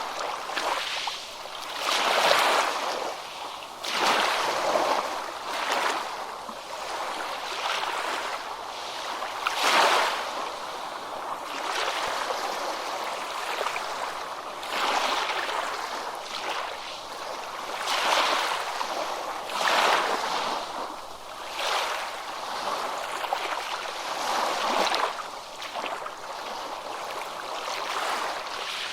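Ocean waves breaking on a beach: a steady hiss of surf that swells every two to three seconds as each wave breaks and washes up.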